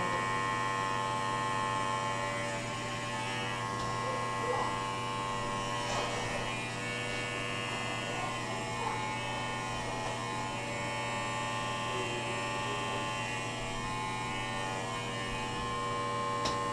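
Electric hair clippers running with a steady buzz as they shave a man's head down to the scalp.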